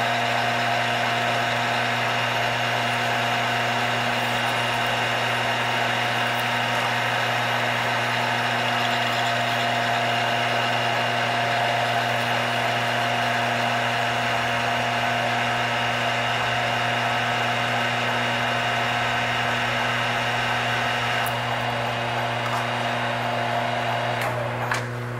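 Engine lathe at 320 rpm, running in reverse while an inverted half-inch high-speed-steel form tool cuts a large undercut in 316 stainless steel lubricated with WD-40. It makes a steady mechanical whine with several held tones. The higher cutting noise thins out about 21 seconds in, and the sound falls away near the end.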